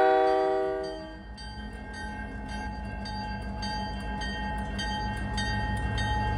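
A locomotive horn chord cuts off in the first second. Then a railroad crossing bell dings about twice a second over the low, steady rumble of a CN freight train rolling past.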